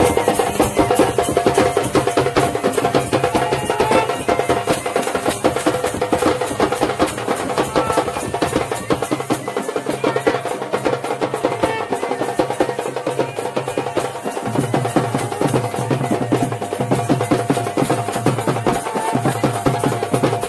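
Traditional folk band playing: fast, driving beats on a barrel drum struck with a stick, with a wind instrument holding steady notes over it.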